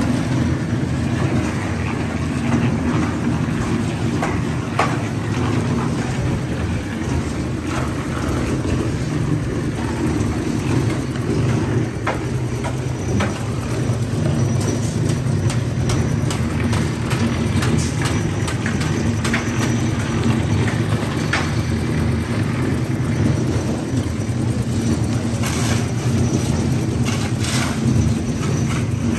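Steady low rumble of a large engine running, with scattered knocks and clicks over it.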